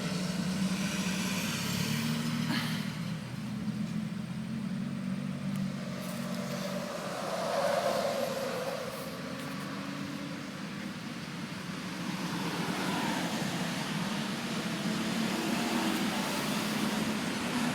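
A motor vehicle's engine running nearby: a low hum that fades in and out over steady outdoor background noise.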